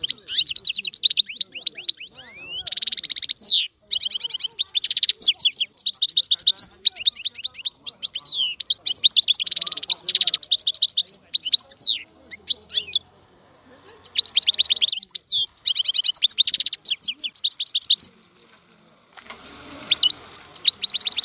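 European goldfinch singing: phrases of rapid, high twittering notes and trills with short pauses between them. A longer pause falls a little past halfway.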